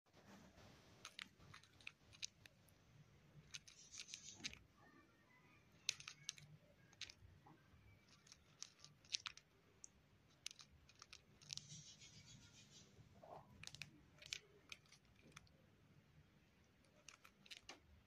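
Cockatiel grinding its beak: faint, irregular clicking and crunching throughout, with short scratchy rasps about four and twelve seconds in. This is the sound a relaxed, drowsy cockatiel makes.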